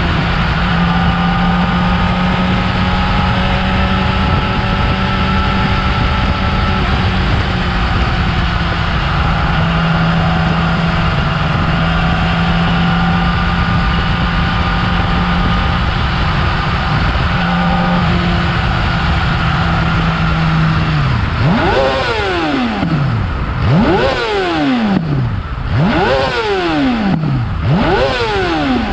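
Yamaha R6's inline-four engine on its stock exhaust, running steadily, then revved four times in quick succession near the end, each rev rising sharply and falling back.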